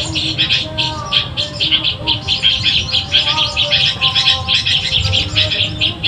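Recorded bird song played from an MP3 speaker as a lure: a fast, unbroken twittering of short high chirps.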